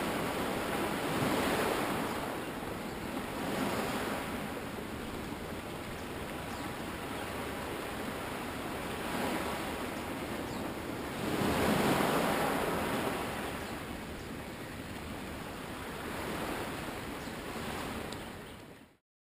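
Small waves washing onto a beach, surging and draining back at uneven intervals of a few seconds, the biggest wash about twelve seconds in. The sound fades out near the end.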